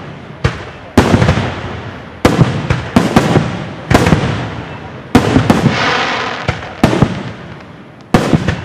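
Fireworks going off in quick succession: about a dozen sharp bangs, roughly one a second and sometimes two close together, each trailing off in a fading rumble.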